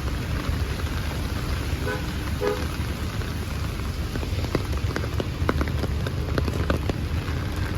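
Heavy rain falling, a steady hiss with many drops ticking close by, over a low rumble. There are two short faint beeps about two seconds in.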